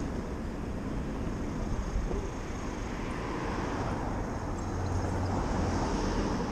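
Wind rushing over a chest-mounted action camera's microphone and tyre noise from a Revel electric moped riding down a city street, a steady low rumble with traffic around it.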